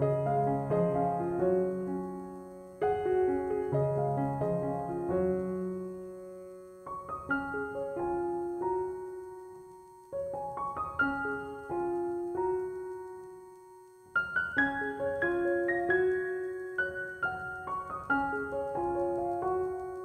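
Background piano music: a melody of struck notes over low chords, in phrases that fade away and start again.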